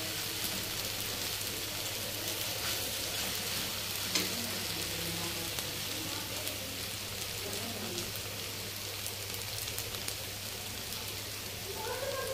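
Sago, potato and peanut khichdi sizzling in a steel kadhai over a gas flame: a steady frying hiss, with a single sharp click about four seconds in.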